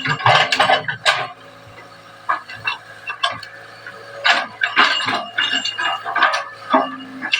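Excavator at work: its engine running steadily under a series of sharp metallic clanks and knocks.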